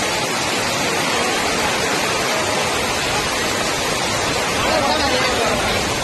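Heavy rain pouring down onto a flooded street: a steady hiss of drops splashing into standing water, swelling slightly a little before five seconds in.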